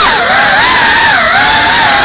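Motors and propellers of a GEPRC CineLog35 cinewhoop drone whining in flight, the pitch swinging up and down with throttle, then holding steady about a second and a half in.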